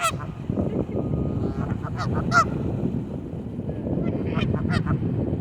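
Geese honking: several short honks in three bunches, at the start, around two seconds in and near the end, over a steady low rumble.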